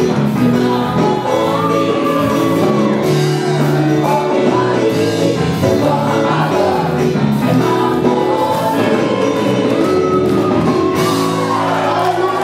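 Live gospel worship band with singers performing, voices over sustained chords and guitar in a large hall.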